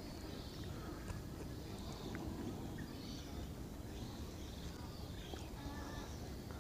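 Quiet outdoor ambience: a steady low rumble with faint, scattered bird chirps.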